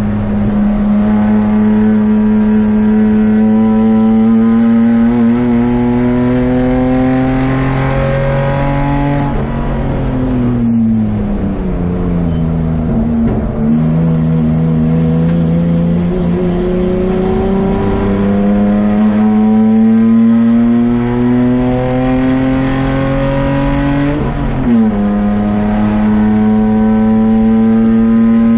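A BMW 635CSI's 3.5-litre straight-six running hard, heard from inside the stripped race car's cabin. The engine note climbs steadily under acceleration, falls as the car slows for a corner, climbs again, and dips sharply once more near the end before rising.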